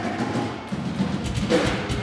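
A live band playing loud music, with a drum kit hitting hard over a heavy low end.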